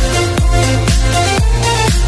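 Background electronic dance music with a steady kick drum about twice a second under held synth chords.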